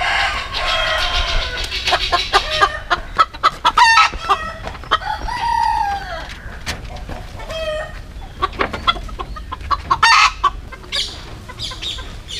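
Chickens clucking in a run of short, clipped calls, with a rooster crowing.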